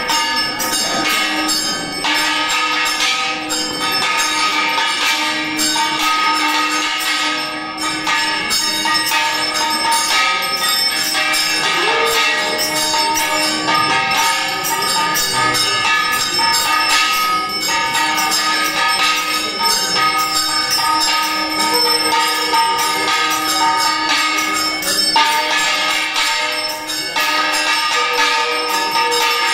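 Small brass puja hand bell (ghanta) rung continuously and rapidly, its ringing tones held and overlapping.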